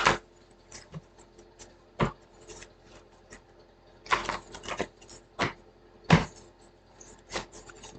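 Irregular clicks, taps and short knocks of objects being handled, with a quick cluster about four to five seconds in and the sharpest knock just after six seconds.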